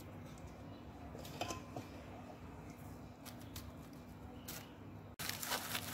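Wooden spoon scooping and pressing a soft chocolate biscuit-pudding mixture into a glass dish lined with plastic wrap: faint squishes and light crinkles of the film. About five seconds in the sound drops out briefly, then comes back as louder, denser crinkling.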